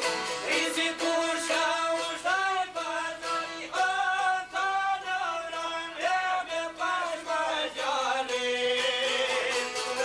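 Albanian folk song: a man sings a melody over plucked long-necked lutes and a bowed violin. The singing stops about eight seconds in and the instruments carry on alone.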